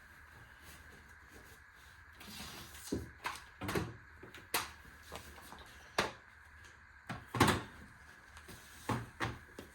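Irregular knocks and clatters, starting about two seconds in, with the loudest near the middle: a folded camping table being handled and hung up on a wall.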